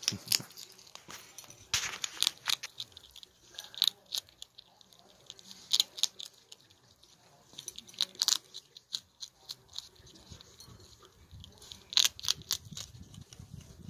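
A juvenile striped skunk crunching dry cat-food kibble, in short bursts of sharp crunches every couple of seconds.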